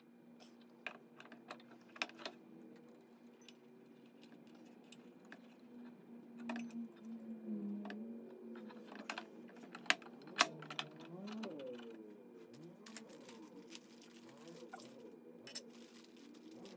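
Irregular clicks, taps and light metallic knocks of hand tools and metal parts as a laser engraver's steel column tower is fitted and bolted onto its base.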